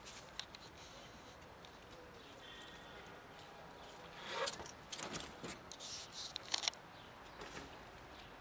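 A cat eating dry kibble from a plastic tub: irregular crunching and clicking, loudest about halfway through.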